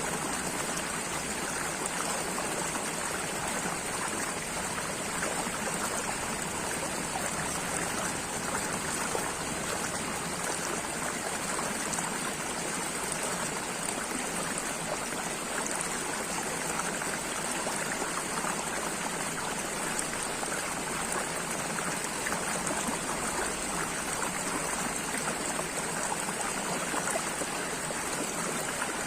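Running water flowing steadily, like a small stream, an even rush with fine trickling and splashing that does not change.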